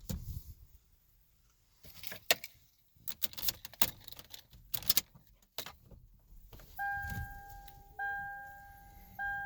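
Keys jangling and small plastic and metal clicks as the steering wheel is turned. Then, from about seven seconds in, the vehicle's electronic warning chime sounds three times, each a steady tone about a second long.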